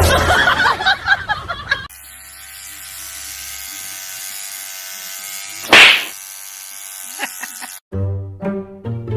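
Electric toothbrush buzzing steadily for several seconds, with one loud sharp knock partway through. A loud, jumbled sound comes before it, and pitched, music-like notes follow near the end.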